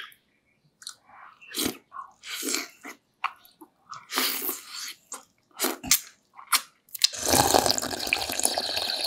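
Close-up eating sounds: wet chewing and biting in separate short bursts, then from about seven seconds in a continuous loud slurping as chicken tinola broth is drunk straight from a glass bowl.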